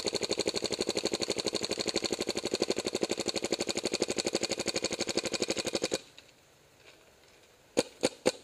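MacDev Clone VX electropneumatic paintball marker firing in PSP ramping mode, an even stream of about twelve shots a second that stops suddenly about six seconds in. Near the end it fires three more single shots in quick succession.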